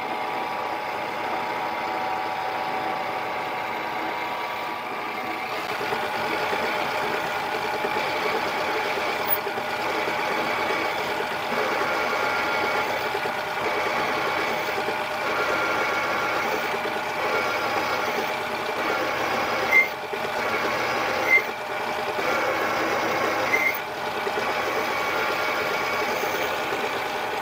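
Mini lathe running with a steady motor-and-gear whine while a boring bar cuts a counterbore in a spinning 6061 aluminium pulley blank. A few short, high chirps come about two-thirds of the way through.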